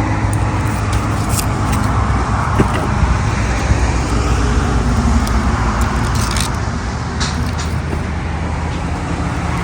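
Steady background noise of motor vehicles, like road traffic, with a low hum and a few faint clicks and taps.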